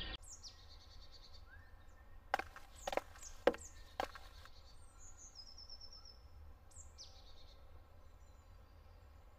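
Quiet forest ambience: birds calling with short high chirps and a rapid trill over a low wind rumble. Four sharp clicks come between about two and four seconds in.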